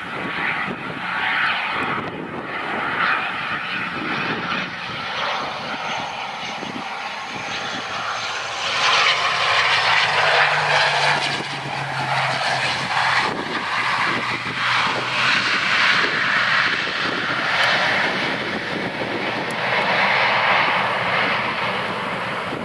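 ATR 72-500 twin turboprop landing: Pratt & Whitney PW127 engines and propellers droning on final approach, then louder from about nine seconds in as the aircraft rolls out along the runway.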